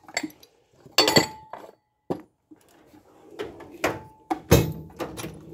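Steel tool chest drawers being worked and loose metal tools clinking inside them: a series of separate clinks and thunks, one ringing briefly about a second in, the loudest thunk about four and a half seconds in.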